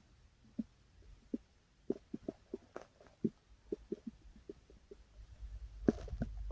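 A hungry stomach growling: a quiet string of short, irregular gurgling pops, then a low rumble swelling about five seconds in with one sharper pop.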